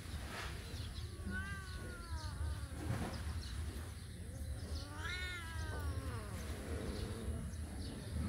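Domestic tabby cat meowing twice: two long, drawn-out meows about three seconds apart, the first falling in pitch, the second rising then falling.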